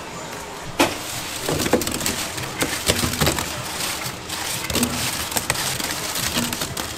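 Crisp battered fried chicken feet tipped from a wire-mesh strainer into a metal pot of sauce and tossed, making an irregular run of crackling clatters and sharp clicks. The sharpest click comes about a second in.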